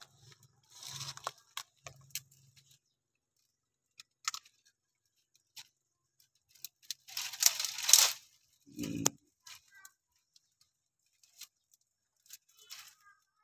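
Dry twigs, branches and dead leaves crackling and snapping as they are pushed aside and handled, in scattered sharp cracks with a denser burst of crackling about seven to eight seconds in. A short low sound follows just after it.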